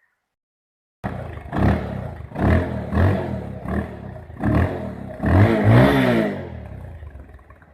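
Bajaj Pulsar 220's single-cylinder engine running with the exhaust muffler insert removed, so it sounds loud and open. It comes in abruptly about a second in and is blipped about six times, the longest rev a little past the middle, then settles back toward idle near the end.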